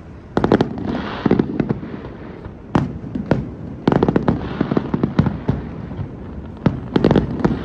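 Aerial fireworks bursting: repeated sharp bangs in clusters a second or more apart, some trailed by a fizzing crackle.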